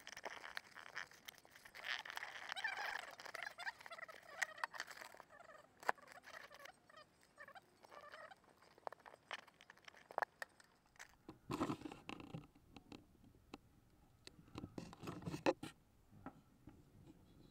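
Sped-up, chirpy jumble of voices, with scattered clicks and rubbing from the small camera being handled at close range.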